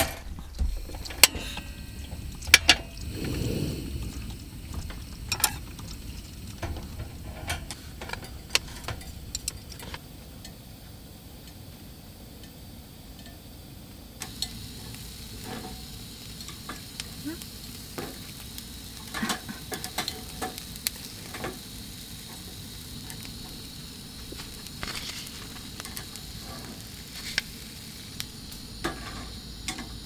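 Food sizzling in a hot pan, with scattered clicks and knocks of utensils against it, sharpest in the first few seconds.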